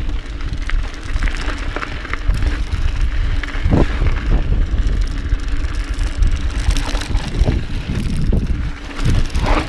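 Mountain bike riding over a dirt trail: tyres rumbling on the ground, with the bike rattling, wind on the microphone and a few sharp knocks along the way.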